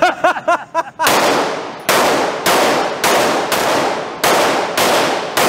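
A brief voice sound, then eight shots fired at a steady pace, about one every half to three-quarters of a second, from an Atlas Gunworks Erebus, a compensated 9mm 2011 pistol. Each shot has a short ringing tail.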